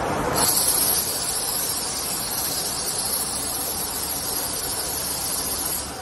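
Velcro tape starching and finishing machine running with a steady low noise, overlaid by a steady high hiss that starts sharply just after the beginning and cuts off near the end.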